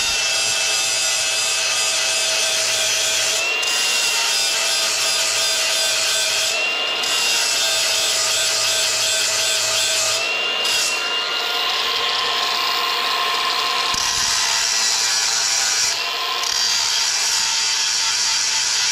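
Cordless angle grinder running with a steady high whine, its wheel grinding carbide stump-grinder teeth with a gritty rasping hiss. The hiss thins out briefly a few times as the wheel moves on the tooth.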